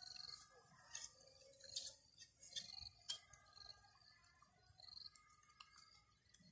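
Faint, irregular scraping strokes and light clicks of a knife shaving and splitting bamboo strips, coming every second or so.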